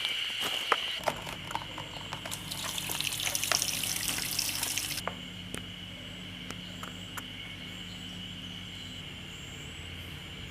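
Water running for about four seconds, starting about a second in and cutting off suddenly, over a steady high tone and a low hum with a few scattered clicks.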